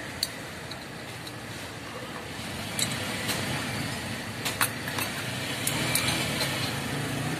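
Metal parts clinking as clutch components are handled during reassembly: several sharp clicks, most of them between about three and six seconds in, over a steady low rumble.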